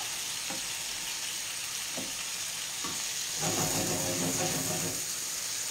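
Tuna steaks sizzling in a frying pan with a steady hiss and a few light clicks. A held humming tone comes in about three and a half seconds in and lasts about a second and a half.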